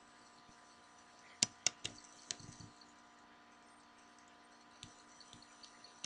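A few sharp computer mouse clicks close together about a second and a half in, selecting and launching a program, then fainter light ticks near the end, over a faint steady electrical hum.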